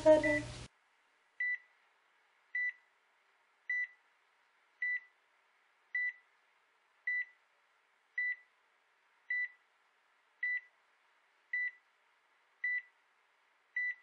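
Hospital bedside heart monitor beeping steadily, one short high beep about every second. A brief vocal sound comes right at the start, over the first beep.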